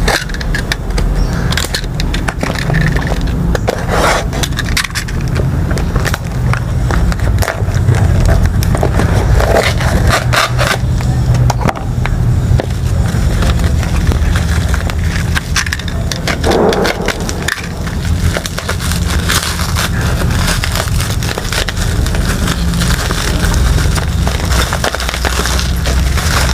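A shipping package being handled and torn open close to the microphone: continuous rustling, crinkling and tearing of packaging with many small clicks and knocks, over a steady low rumble of handling noise.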